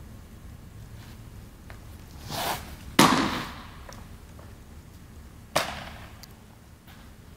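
An 81 mph fastball popping into the catcher's leather mitt about three seconds in: a sharp crack that rings on in the hall. Just before it comes a short swish of the delivery, and about two and a half seconds later a second, lighter smack of the ball being caught again.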